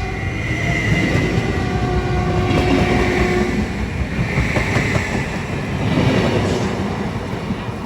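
A train passing at speed: a heavy, steady rumble of wheels on the rails, with thin high squealing tones from the wheels above it.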